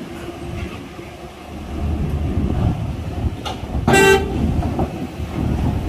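Coach bus's diesel engine running as it drives off a ferry ramp, growing louder as it passes close by, with one short horn toot about four seconds in.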